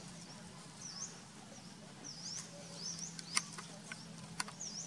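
A small bird chirping again and again, quick high chirps that dip and rise, over a faint steady low hum. Two sharp clicks come near the end, the first about three and a half seconds in and the loudest sound, the second a second later.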